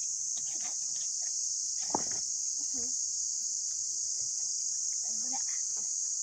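Steady high-pitched drone of an insect chorus, with a single brief knock about two seconds in.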